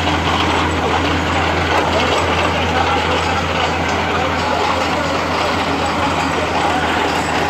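Compact water-well drilling rig running steadily: a continuous low, even machine hum with a noisy rattle over it.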